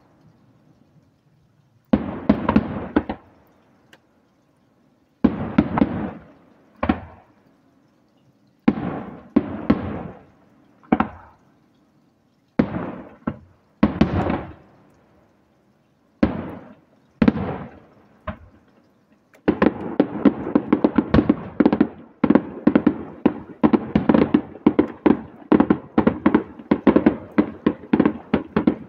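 Aerial firework shells bursting, separate loud bangs a second or two apart, each trailing off in a rolling echo. About two-thirds of the way through, a rapid barrage sets in, with many bangs following close on one another.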